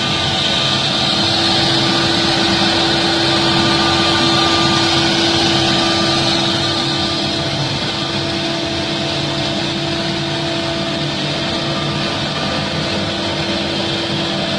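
CNC router spindle running and carving wood: a steady whine over dense cutting noise, a little louder for the first six seconds or so.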